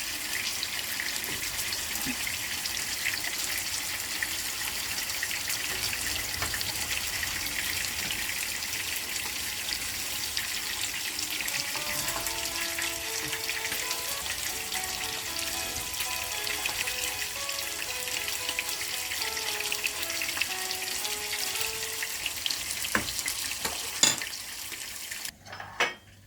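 Cornflour-coated potato chips deep-frying in hot oil: a steady sizzling hiss full of small crackles. Soft background music comes in about halfway, and a sharp knock sounds near the end before the sizzling stops.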